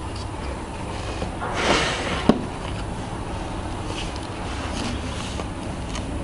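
Sunglasses packaging handled by hand: a short rustling swish, then a single sharp click a little over two seconds in, with a few faint rustles after, over a steady low background rumble.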